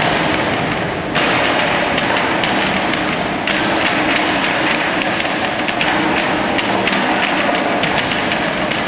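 Rapid, irregular wooden knocks and thuds of forearms and hands striking the arms and trunk of a Wing Chun wooden dummy (muk yan jong) during the dummy form.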